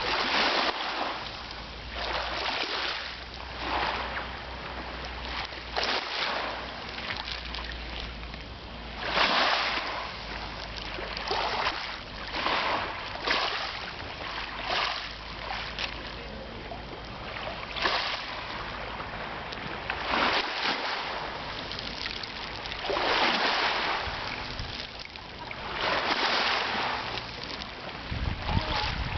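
Sea waves washing in and breaking, a hissing surge swelling and fading every two to three seconds.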